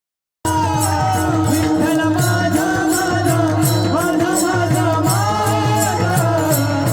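Varkari kirtan devotional singing in a very high voice, over a steady drone, a drum and small hand cymbals keeping an even beat of about three strokes a second. It starts abruptly about half a second in.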